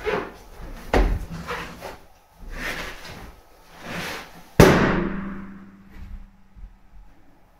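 A balloon squeezed against the body bursts with a single loud pop about four and a half seconds in, ringing on in the room as it dies away. Before it, bumps and rubbing of balloons being handled.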